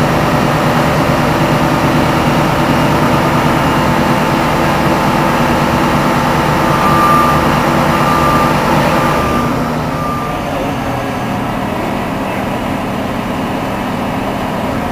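Heavy diesel engine of a self-propelled modular transporter running steadily, with four short warning beeps near the middle. About two-thirds of the way through the sound drops to a quieter, duller steady engine hum.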